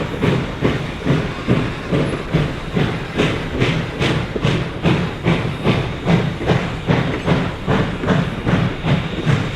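Steam locomotive Reading & Northern 425 working under steam: its exhaust chuffs in a steady rhythm of about two to three beats a second, with a hiss of steam.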